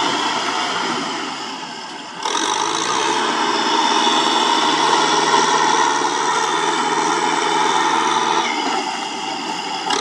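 Kubota M6040SU tractor's four-cylinder diesel engine running under load as the tractor pushes mud with its front blade. The engine note picks up sharply about two seconds in, holds steady, then eases slightly near the end.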